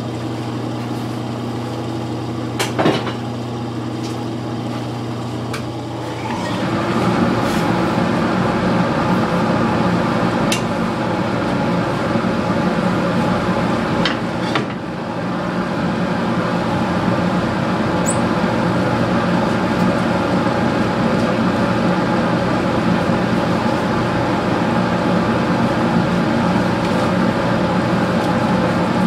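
Lathe running with a steady hum. About six seconds in it grows louder and rougher, and stays that way. A few sharp clicks and one brief high squeak come along the way.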